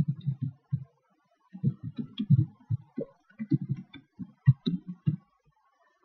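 Typing on a computer keyboard: an irregular run of short, dull keystrokes, with a brief pause about a second in.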